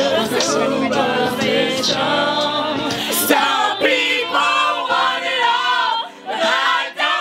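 A small group of young men and women singing loudly together in unison, a lively chant-like group song.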